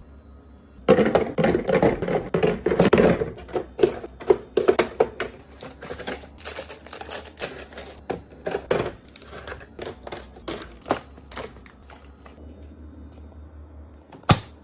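Small packaged items and containers clattering and tapping as they are handled and set down one after another, busiest in the first few seconds, then scattered taps, with one sharp click near the end.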